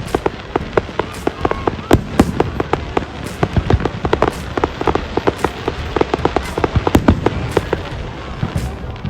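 Fireworks going off: rapid, irregular bangs and crackles, several a second, busiest through the middle, over a steady background din.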